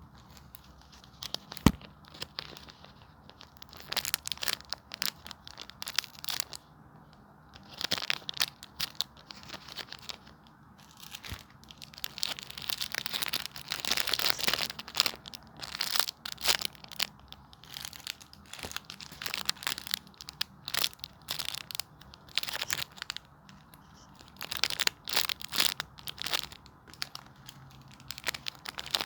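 Homemade squishies being squeezed and handled, crinkling and crunching in irregular bursts, with a sharp tap about two seconds in.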